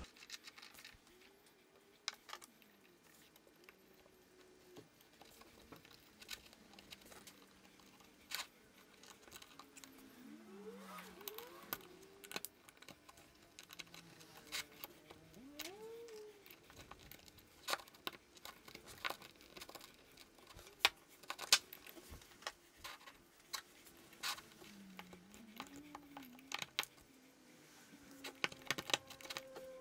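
Small metal parts of an old brass-and-cast-iron beer hand pump being worked by hand on a wooden bench: scattered light clicks, taps and scraping as a steel pick digs old packing out of a threaded gland, with a few faint short squeaks.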